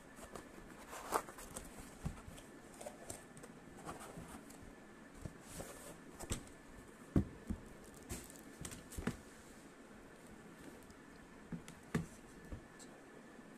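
Hands opening a cardboard shipping box: scattered taps, knocks and scrapes on the cardboard, with a few brief rustles of packaging.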